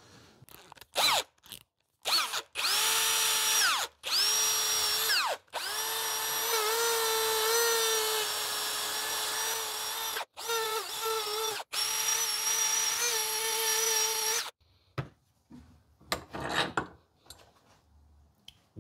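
Small high-speed rotary tool with a wire wheel brush, switched on in several bursts for about 13 seconds, whining at a steady pitch, scrubbing the face of a VW air-cooled engine's aluminium oil pump body. One run winds down in pitch as the tool spins down.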